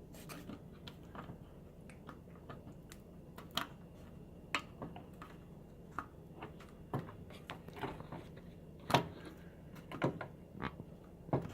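Scattered small clicks and taps of plastic parts being handled as the new microwave keypad's ribbon connector is worked into its port on the control board.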